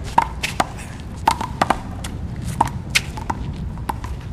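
Rubber one-wall handball (a 'Big Blue') smacking sharply and irregularly off hands, the concrete wall and the court, about nine hits in a few seconds, over a steady low outdoor rumble.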